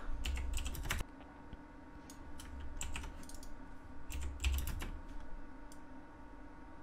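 Computer keyboard keys and mouse buttons clicking in three short clusters of quick taps, as Blender shortcuts (Ctrl+R loop cut, S to scale) are entered and confirmed.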